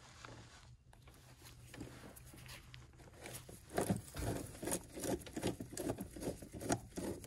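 Light, irregular clicking and small knocks from a hand tool working an intake manifold screw loose, starting a few seconds in after a quiet stretch.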